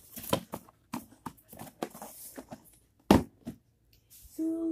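Cardboard box and its contents being handled and rummaged: a string of short knocks and rustles, with one loud thump about three seconds in.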